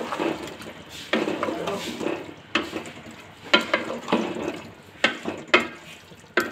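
Slotted spatula stirring and scraping beef mince and potato chunks around a large aluminium pot, in repeated strokes. From about halfway through, the spatula clacks sharply against the pot about five times.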